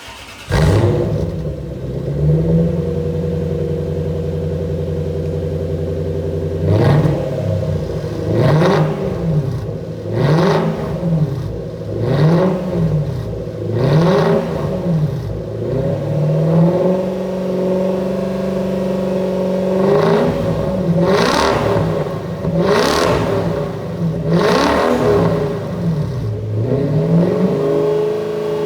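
Lexus SC430's 4.3-litre V8 exhaust through a straight-through stainless-steel competition center muffler and one-off rear section. The engine comes in suddenly and idles, then is revved up and released again and again, roughly once every second and a half to two seconds. Midway it holds steady at higher revs for a few seconds, is blipped several more times, and near the end settles back to idle.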